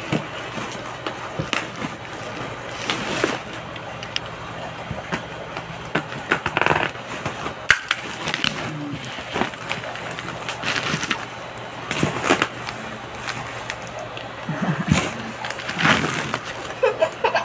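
A cardboard box and the black wrapping over it being handled and pulled about: irregular rustling and scraping, with sharper knocks and crinkles now and then.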